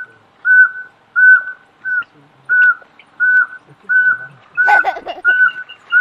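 Yungas pygmy-owl calling: a long, even series of single whistled toots on one pitch, about three every two seconds.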